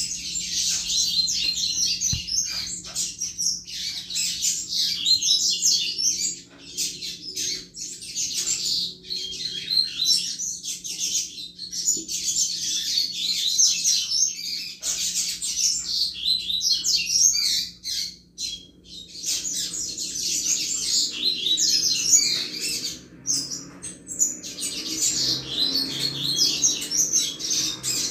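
Double-collared seedeater (coleiro) singing the 'chuva' song type: long runs of rapid, high twittering, broken by brief pauses between phrases.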